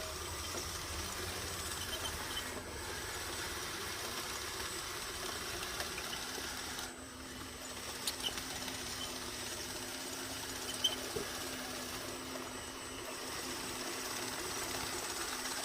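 A radio-controlled model bulldozer's electric drive motors and gearboxes whirring steadily as it works, with a few sharp clicks about eight seconds in.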